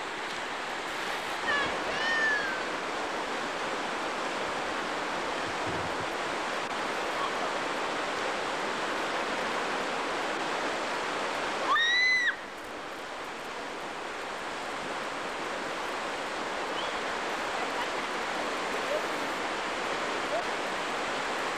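Rushing river water running over rocky rapids, a steady hiss. A brief high-pitched call that rises and falls rings out about twelve seconds in, with a shorter, falling one about two seconds in.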